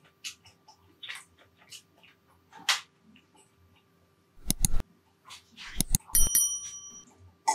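Close-miked eating sounds: wet chewing and lip smacks, then utensils knocking against dishes, with one clink about six seconds in that rings for nearly a second.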